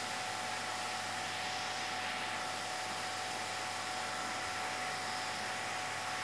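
Steady, even hiss of running equipment with a faint constant hum and a thin steady tone underneath.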